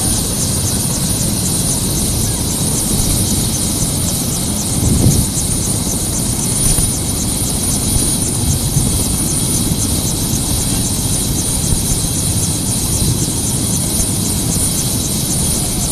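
Turbine helicopter running on the ground with its rotor turning: a steady high whine over a rapid, even rotor beat. There is a brief low rumble about five seconds in.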